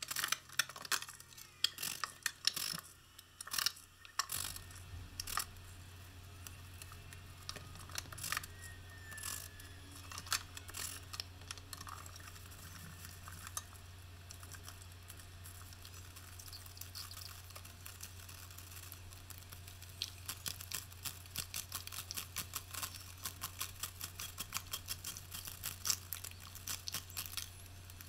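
Sped-up work noise from hanging Kerdi-board panels on a shower wall: a fast, irregular patter of faint clicks and taps, thickest near the end, over a low steady hum that comes in about four seconds in.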